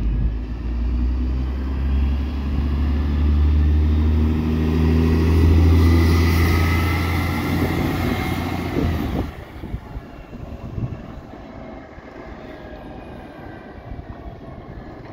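Dennis Trident double-decker bus pulling away from a stop, its diesel engine drone rising in pitch as it accelerates through the gears, with a thin whine partway through. The engine sound drops away abruptly about nine seconds in, leaving quieter street noise.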